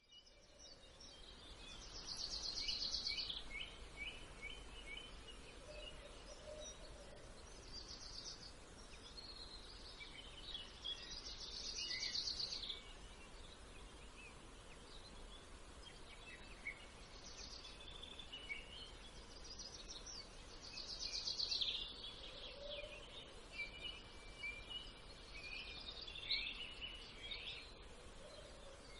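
Songbirds singing: short, rapid high-pitched phrases that come every few seconds, over a faint steady low rumble.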